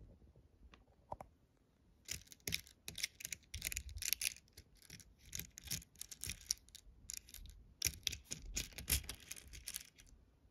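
Small plastic alphabet beads clicking and rattling in a plastic organizer compartment as fingers rummage through them picking out letters. A rapid, uneven run of clicks starts about two seconds in and goes on until near the end.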